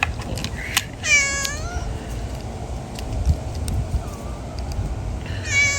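Domestic cat meowing twice: one meow about a second in and another starting near the end, with a few light clicks in between.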